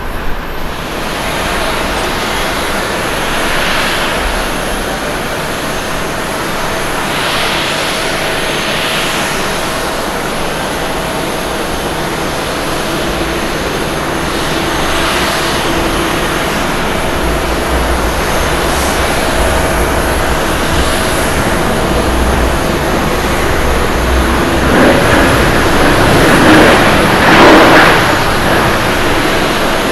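Jet airliner engines, a steady rush of engine and air noise with a faint hum of steady tones. Later it is a landing Airbus A321neo rolling out on the runway, and the noise swells louder about 25 to 28 seconds in as it passes close by.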